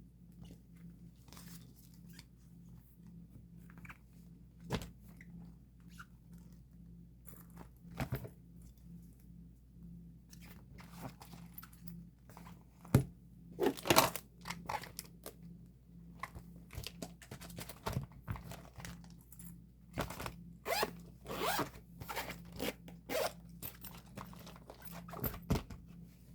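Photocards and their plastic sleeves being handled and sorted: irregular crinkling, rustling and small clicks. A few louder crinkles come about halfway through and again in the last several seconds.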